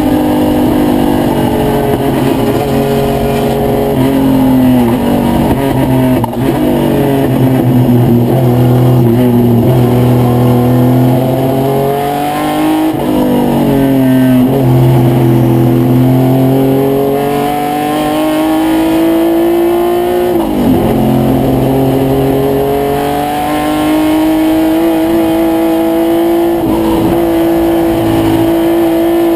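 Race-prepared 1972 Triumph GT6 straight-six engine at racing speed, heard from inside the cockpit. The note climbs and falls around the lap, with a few quick sharp dips and recoveries, and rises steadily near the end.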